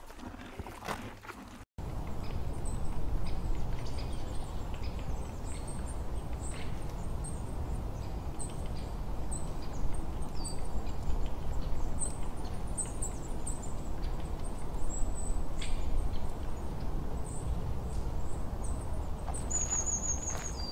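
Outdoor ambience: a steady low rumble with small birds chirping in short, high calls throughout, and a quick trill near the end. The first couple of seconds, before an abrupt cut, hold a few faint crunches and clicks.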